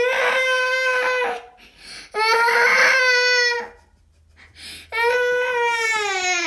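A toddler crying around a pacifier: three long wails of a second or more each, with short pauses between, the last falling in pitch as it ends.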